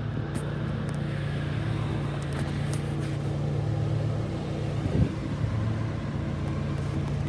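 Recycling truck's engine running steadily, a low even hum, with a single thump about five seconds in.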